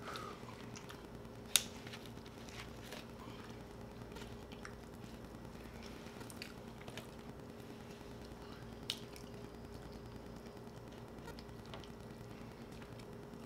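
Close-up eating sounds: grilled chicken being pulled apart by hand and chewed, with soft wet squishy clicks. A sharp click about one and a half seconds in is the loudest, with a few smaller ones later, over a steady low hum.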